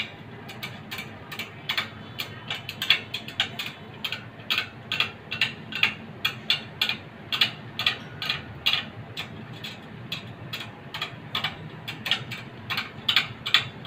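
Rapid, irregular metallic clicking and ticking, several clicks a second, from the spokes of a motorcycle wheel being tensioned and trued with a spoke wrench.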